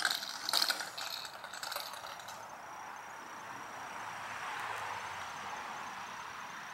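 A child's bicycle with training wheels rattles and clicks as it rolls over asphalt for the first two seconds or so. After that comes a steady hiss of insects.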